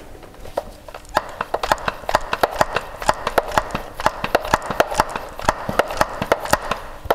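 Rapid, uneven clicking and popping, about five clicks a second, from a hand-pumped air-pressure oil-transfer rig as air and gear oil are forced through the hose into a differential.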